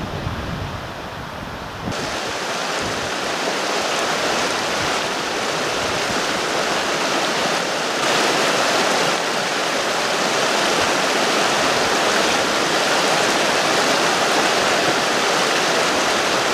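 Fast-flowing mountain river rushing over rocks, a loud, steady roar of water. For about the first two seconds there is only a quieter wind rumble on the microphone before the river sound comes in.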